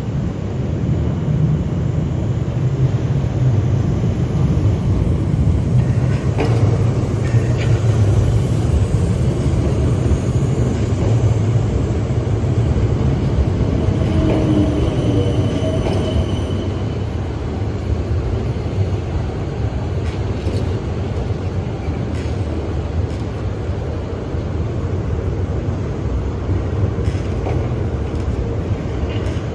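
Class 455 electric multiple unit running on the track: a steady low rumble of wheels and motors, with a brief faint whine about halfway through.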